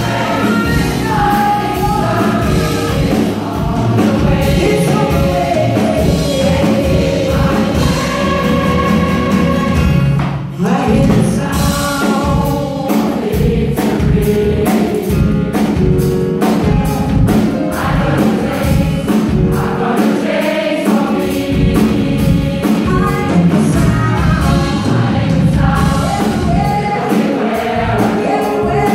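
Large gospel choir singing in full voice with a live band of drums, bass guitar and keyboards. The sound drops briefly about ten seconds in, then the choir and band come back in together.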